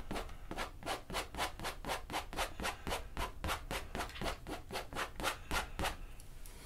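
Palette knife rubbing across wet oil paint on a stretched canvas in quick, even strokes, about four a second, that stop about six seconds in.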